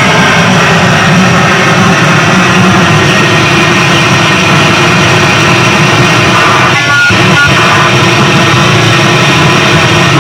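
Harsh noise electronics played very loud as a dense, distorted wall of noise spread from the lows to the highs. About seven seconds in it dips briefly, and two short tones break through.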